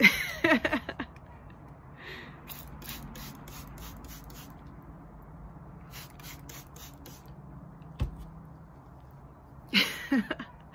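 Trigger spray bottle spritzing water onto hair in quick squirts, in two runs: a longer run a couple of seconds in and a shorter one around six seconds in. Dampening the hair is the usual step before winding rag curls.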